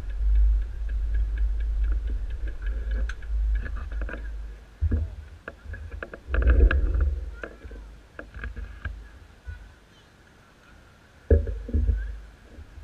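Low rumbling and knocking on a moving camera's microphone, with many scattered sharp clicks. It fades almost away about ten seconds in, then comes back with a sudden knock.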